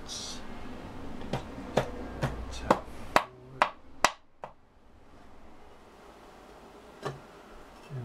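A run of about seven sharp taps, roughly two a second, on the BMW R100GS Paris-Dakar's timing chain cover as it is worked loose, then a single tap a few seconds later.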